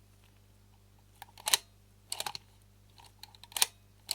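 Sharp small mechanical clicks from a Mamiya-Sekor C 127mm lens mechanism being worked by hand, a few of them close together, about a second and a half in, just past two seconds and near the end, over a steady low hum.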